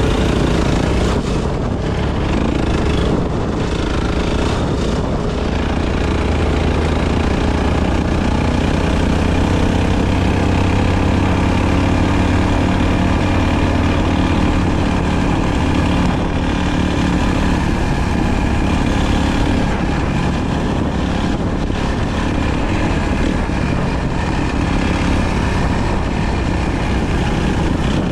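Enduro motorcycle engine running steadily while riding, its pitch drifting a little up and down with the throttle.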